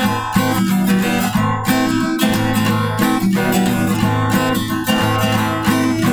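Acoustic guitar strummed in a steady rhythm, full chords ringing on each stroke: the instrumental close of a campfire-style song.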